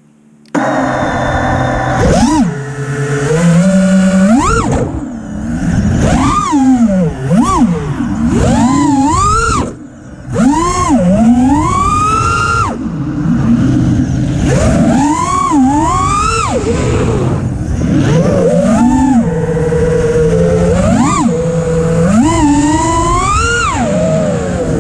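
FPV racing quadcopter's brushless motors whining, sliding up and down in pitch with each throttle punch and chop during freestyle flight; the sound starts about half a second in.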